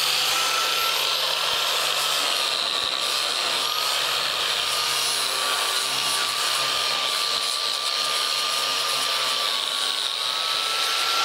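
Corded angle grinder with an abrasive disc running steadily against painted wooden boards, taking off the top layer of paint to smooth and distress the wood. Its motor whine sags a little in pitch under load in the middle and rises again near the end.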